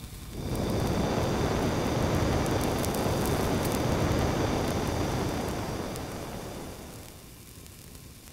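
Rushing roar of a handheld torch flame playing on the putty, swelling in about half a second in, holding steady, then fading away over the last few seconds.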